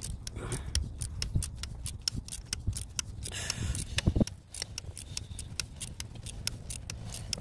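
Ratchet wrench clicking in quick runs, several clicks a second, as it is swung back and forth on a long extension to work a seized glow plug loose.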